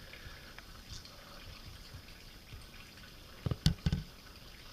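Faint background hiss with a short cluster of three or four sharp knocks about three and a half seconds in.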